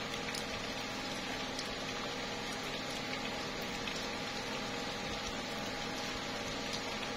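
Slow, light rain falling on tree leaves: a steady hiss with scattered drip taps.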